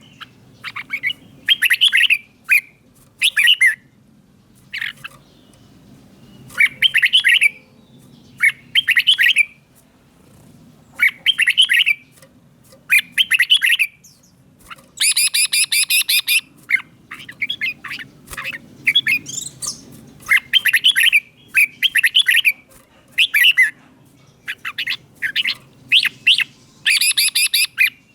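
Red-whiskered bulbul singing short, clear whistled phrases one after another with brief pauses between them. A louder, harsher chattering phrase comes about halfway through.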